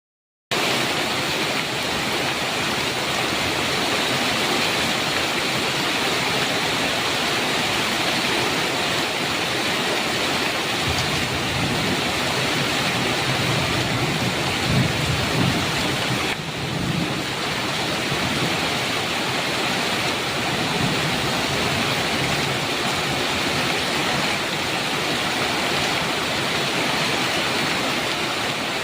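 Heavy rain falling steadily on a metal roof, with thunder rumbling low from about a third of the way in, strongest near the middle and fading out. The sound drops out for about half a second at the very start.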